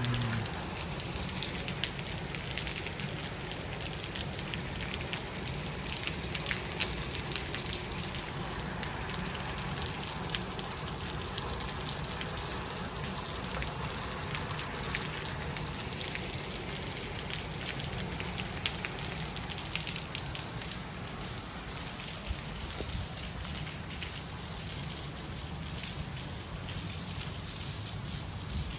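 Steady rain falling, with many separate drops striking nearby surfaces.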